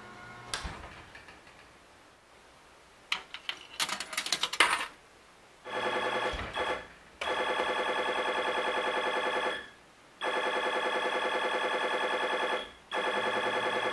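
Claw machine being played: a few clicks and a quick clattering about three to five seconds in, then a pulsing electronic buzz from the machine in four stretches of two to three seconds each, broken by short gaps.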